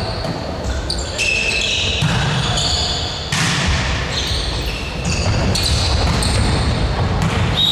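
Indoor court game play in a large, echoing sports hall: many short, high shoe squeaks on the court floor over a continuous low rumble of play and movement.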